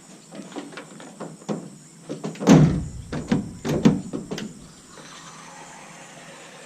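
Pickup tailgate being worked, giving a series of metal clunks and clicks. The heaviest clunk comes about two and a half seconds in, with several sharper knocks over the next two seconds.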